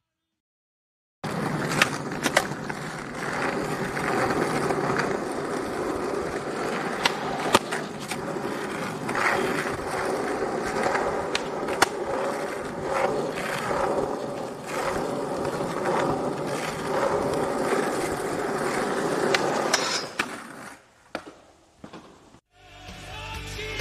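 Skateboard rolling on hard ground: a steady wheel rumble broken by sharp clacks of the board striking the ground. It starts about a second in and stops about twenty seconds in.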